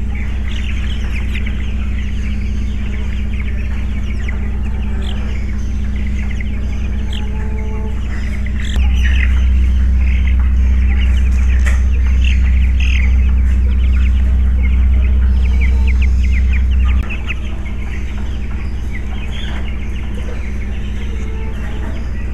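A group of young chicks cheeping, many short high peeps overlapping throughout, over a steady low hum that gets louder from about nine seconds in to about seventeen seconds in.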